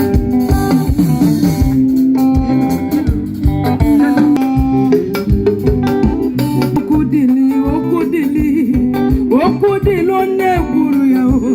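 A band playing: guitars and bass over a steady beat, with a voice singing over it.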